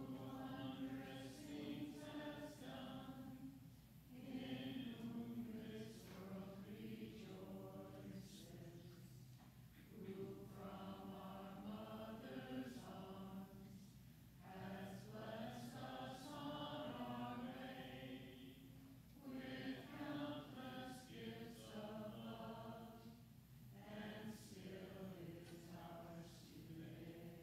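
A small church congregation singing slowly, in phrases of a few seconds each with short pauses between them.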